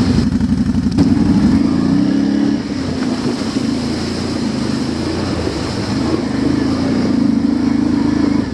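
ATV engine running while riding, its pitch rising and falling with the throttle.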